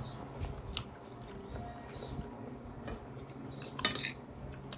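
Metal spoon scraping and clinking against a glass plate as food is scooped up, with small scattered clicks and one louder clink a little before the end.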